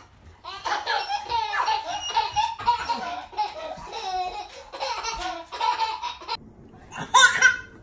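A baby laughing hard in long runs of quick, repeated belly laughs. Near the end comes a short loud burst.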